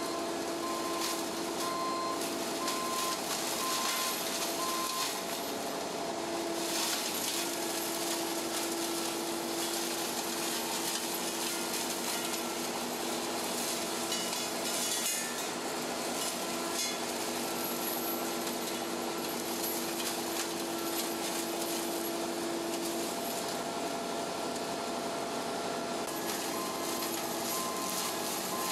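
Cat HMF210 hydraulic mulcher head on a Cat 309 CR mini excavator grinding through brush, a dense steady shredding noise with a steady hydraulic whine under it. A short beep repeats about once a second for the first few seconds and again near the end.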